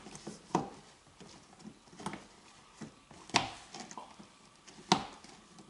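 Plastic eyeglass holder and its mounting clips being pushed up into the headliner holes, knocking and clicking: four sharper clicks about a second and a half apart among softer taps.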